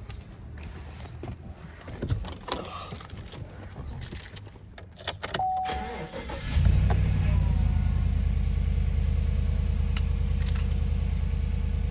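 Light clicks and rattles and a short beep about five seconds in, then a vehicle engine starts about six and a half seconds in and settles into a steady idle.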